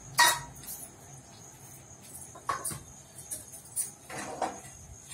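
Several sharp knocks and clicks, the loudest about a quarter second in, with a faint steady high-pitched whine behind them.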